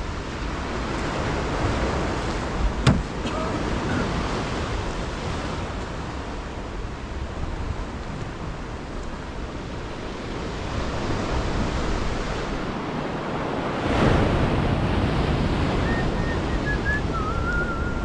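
Sea waves washing onto the shore with wind buffeting the microphone, swelling and easing in slow surges. A single sharp knock about three seconds in, and a faint high whistle near the end.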